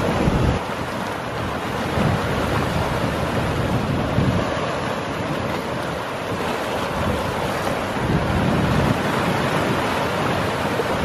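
Choppy sea surf breaking and washing over a rocky reef, a steady rush that swells every few seconds, with wind buffeting the microphone.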